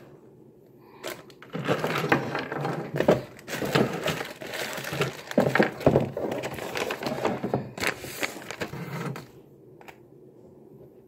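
Close handling noise: rustling, crackling and small knocks of the camera rubbing against clothing as fallen things are gathered up. It starts about a second and a half in and stops shortly before the end.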